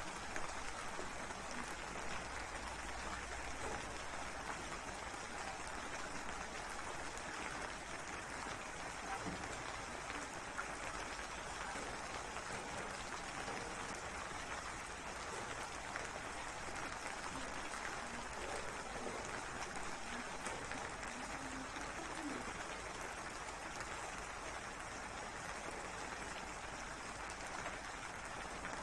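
Steady rain: a dense, even patter of many small drops.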